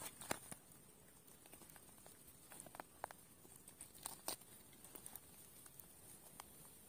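Faint, scattered small clicks and rustles of hands working a hook out of a climbing perch held in a cloth towel.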